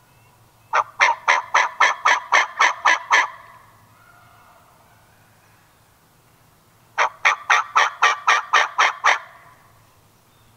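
Wild turkey yelping: two runs of about ten evenly spaced yelps, about four a second, the second run starting about six seconds after the first.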